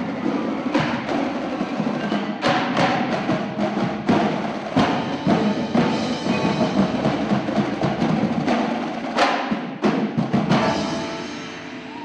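Indoor marching drumline playing: snare drums, tenor drums and pitched bass drums in dense rhythm with sharp accented unison hits, over sustained pitched notes from the front ensemble's mallet keyboards. The playing dies away about eleven seconds in.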